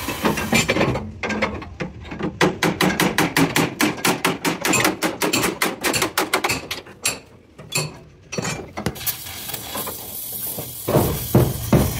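Hand hammer beating a bent steel truck door frame in quick, even blows, about five a second, to straighten it. The blows stop briefly, then a few more follow.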